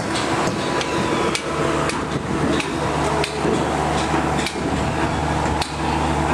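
Hammer blows, about seven irregular strikes roughly a second apart, over a steady low motor hum.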